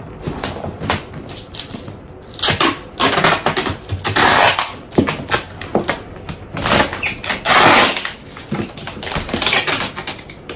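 Handling noise from packing an artificial Christmas tree into its storage bag: a storage bag rustling and crinkling, with scraping and sharp clicks and knocks from the tree parts. The sounds come in irregular bursts, busiest from about two seconds in until near the end.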